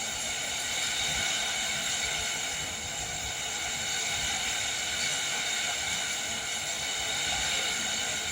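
Heavy rain driven by wind, an even, steady hiss of rainfall.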